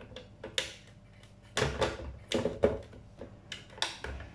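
Hard plastic clicks and knocks as a hand-held cake mixer is lifted and seated on its plastic stand. There are several sharp taps, busiest around the middle.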